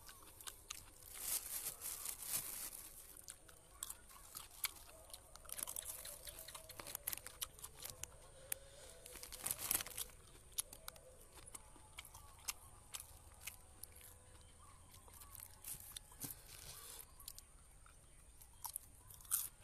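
Close-up chewing and crunching of food, mixed with clear plastic bags rustling and crinkling as hands pick food out of them. The sounds come in irregular clicks and short bursts.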